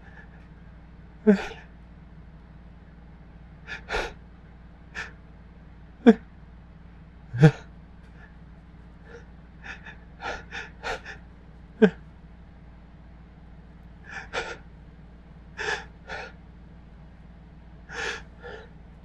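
A person's short, sharp gasping breaths, repeated at irregular intervals with a few much louder ones, as a sneeze builds without coming.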